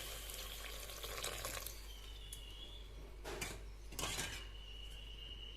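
Tamarind water being poured into a kadai of cooking masala: a faint pour of liquid, with two light clinks of metal utensils a little past three seconds and about four seconds in.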